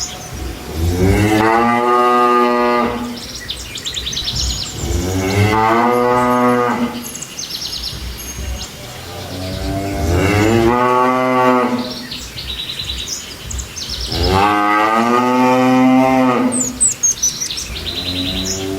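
Cattle mooing: four long, drawn-out moos a few seconds apart.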